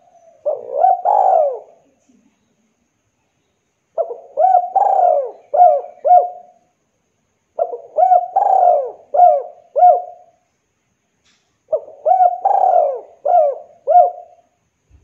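Spotted dove (derkuku) cooing: four phrases about three and a half seconds apart, each a short run of coos with one longer, drawn-out note among quicker ones.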